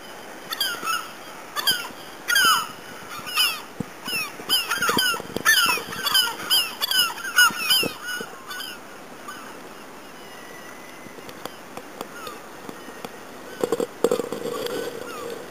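A flock of water birds calling: many short, downward-sliding honking calls overlapping, several a second, dying away after about eight seconds. Near the end a lower noise with a few knocks comes in.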